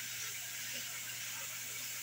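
Steady hiss with a faint low hum underneath, unchanging throughout.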